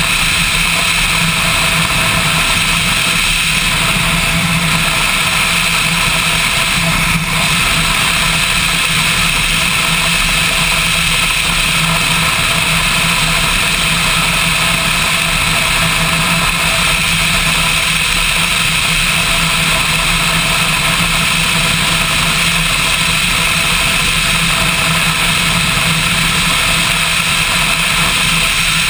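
Motorcycle engine running at a steady pace under way, with a constant drone and wind and road noise.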